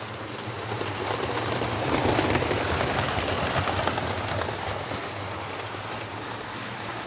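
Model train, a Class 67 diesel locomotive hauling coaches, running along the layout's track with a steady rumble and rattle of wheels on rail. It grows louder about two seconds in as the train passes close, then eases off.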